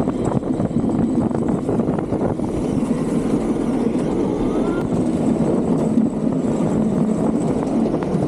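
Gravity luge cart rolling fast down a paved track: a steady rumble of the wheels on the surface, with constant rattling clicks.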